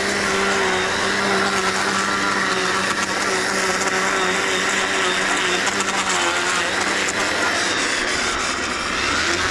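Gas string trimmer running steadily, its line cutting grass along the sidewalk edge.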